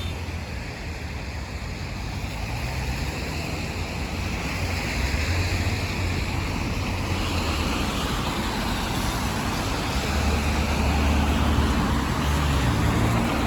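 Road traffic passing on a wet street: tyres hissing on the rain-soaked road over a low engine rumble, with vehicles swelling louder about five seconds in and again near the end.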